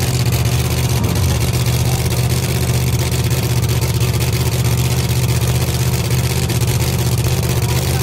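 Drag-race truck's big engine running at a steady, lumpy high idle, the pitch holding even with no revving, as it sits on the line just after its burnout.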